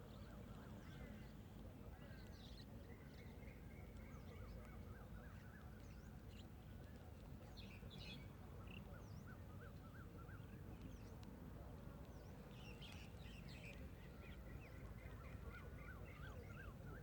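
A mix of wild birds calling faintly: many short chirps and quick runs of repeated notes, with several birds at once, over a low steady rumble.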